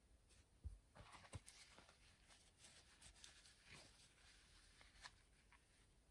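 Faint rustling and rubbing of a soft polishing cloth being worked over a vintage fountain pen's hard barrel, with a soft bump just under a second in and a few small ticks of handling.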